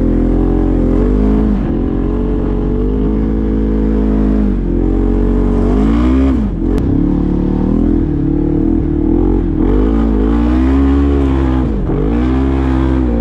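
Side-by-side UTV engine running under way, heard from inside the cab, its pitch rising and falling repeatedly as the throttle is worked, with several brief drops.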